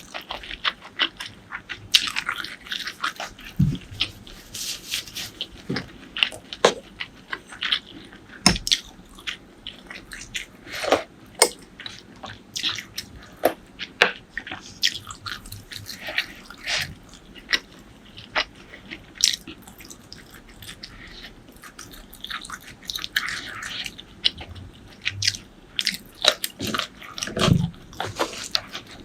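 Close-miked eating sounds: chewing and biting as an irregular run of sharp mouth clicks and smacks, with a few louder bites standing out.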